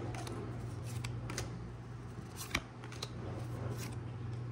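Trading cards being slid and flipped by hand one behind another: a soft scraping rustle with a few sharp card clicks, the loudest about two and a half seconds in, over a steady low hum.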